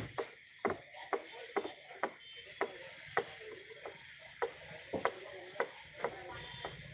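A steady run of sharp knocks or taps, about two a second, with a low hum coming in near the end.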